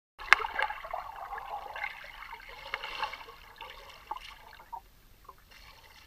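Underwater ambience picked up by a GoPro in its waterproof housing. A sharp click comes right at the start, followed by a crackling, trickling hiss with scattered small ticks that fades away over a few seconds.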